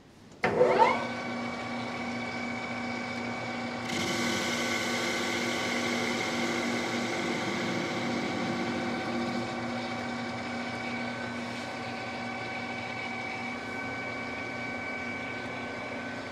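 Precision Matthews 1660 geared-head lathe starting up: its motor and gears sweep up to speed about half a second in, then run steadily with a hum and a high whine. About four seconds in, a steady hiss joins as the tool cuts the steel bar.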